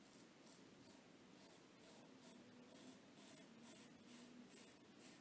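Faint, short scrapes of a Cichy Custom Knives 15/16 straight razor cutting stubble through shaving lather, about two to three strokes a second, on a second pass.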